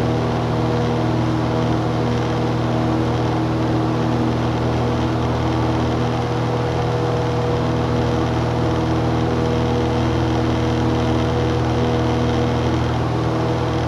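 Cessna 170's six-cylinder Continental C-145 engine and propeller running at a steady, unchanging power, a constant drone heard inside the cabin.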